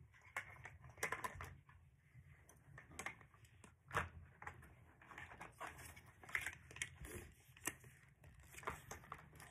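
Hard plastic toy-car track pieces clicking and knocking against each other as they are handled, in irregular light clicks about two a second.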